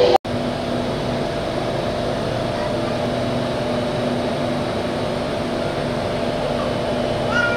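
Steady running noise inside a moving Singapore MRT North East Line train carriage: an even hum with a couple of faint steady tones.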